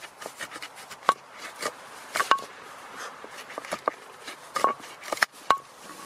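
Edelrid climbing knife sawing through a single climbing rope laid on a wooden board: repeated scraping strokes with many sharp clicks, some ringing briefly, as the blade works through the fibres and meets the wood.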